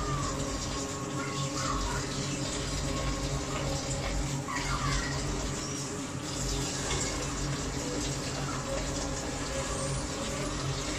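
Gas stove burner running under a covered pot of chicken soup broth as it heats, a steady hiss over a steady low hum.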